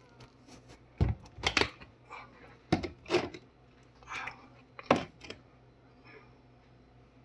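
Handling noise in a kitchen: about five irregular sharp knocks and clacks, with light rustling between them.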